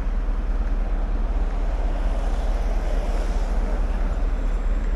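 Wind noise on the microphone of a moving bicycle: a steady low rumble of air rushing past.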